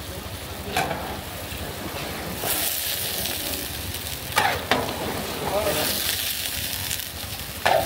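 Food frying in a large cooking pot: a steady sizzling hiss of hot oil, broken by a few short scrapes or knocks, about a second in, twice near the middle, and near the end.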